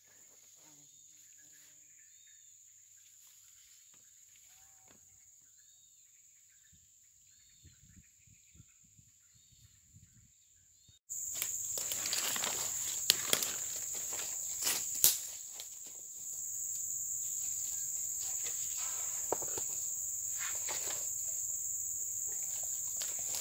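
Steady high-pitched insect drone of tropical forest with a few faint bird chirps. It jumps much louder about halfway through, with sharp crackles of dry leaf litter and rustling as a backpack is handled.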